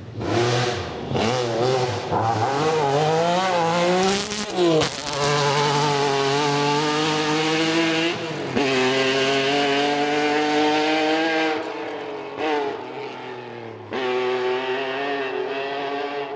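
Rally car engine at high revs, its pitch climbing and dropping through several gear changes, with a couple of short bursts of noise about four seconds in. The engine fades toward the end.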